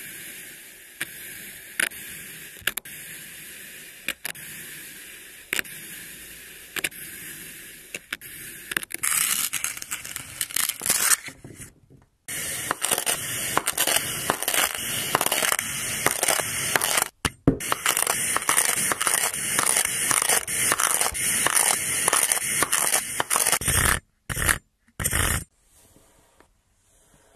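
Kinetic sand being cut with a knife: a soft gritty hiss with a sharp click about once a second, then a denser, crunchy crackling with many rapid clicks as a cleaver cuts through a block of the sand. A few short bursts of sound near the end.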